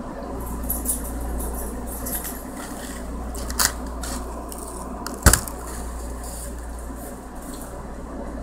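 Steady low hum with light clinking and two sharp clicks, the louder one a little past five seconds in.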